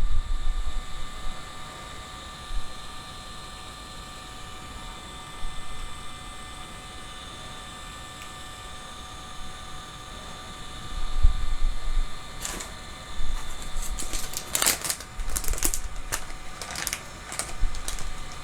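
Handling noise: a few low knocks, then a quick run of sharp clicks and rustles in the second half, over a faint steady whine.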